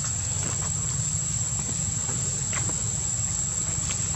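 Insects droning with one steady, unbroken high-pitched tone, over a low rumble, with a few faint ticks.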